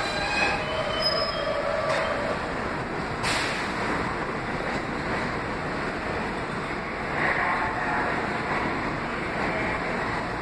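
New York City subway train running through the station: a steady rumble of wheels on rail, with a single sharp clank about three seconds in.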